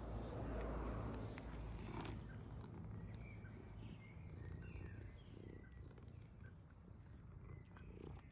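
A domestic cat purring, a steady low rumble.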